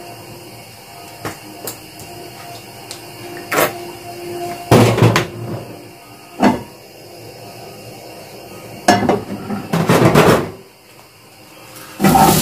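Kitchen clatter at a gas stove: scattered knocks and clinks of a bottle and utensils, with two short noisy bursts. Near the end a loud sizzle starts as chopped onion is scraped from a wooden cutting board into hot oil in a frying pan.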